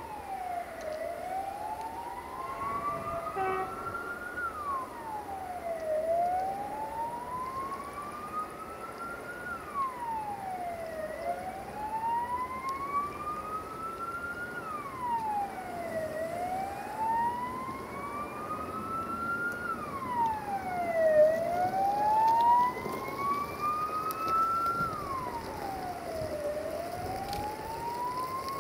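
A siren wailing: its pitch rises slowly over about three seconds, then falls more quickly, in a steady cycle about every five seconds.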